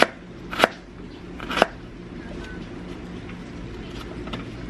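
Kitchen knife slicing carrots against a plastic cutting board: three sharp chops in the first two seconds, then a few lighter taps.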